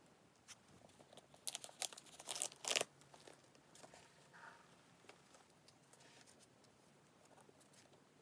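Crinkling and rustling of a thin protective wrapping sheet on a new handbag as hands handle it, loudest in a cluster of sharp crackles about one and a half to three seconds in, then softer rustles.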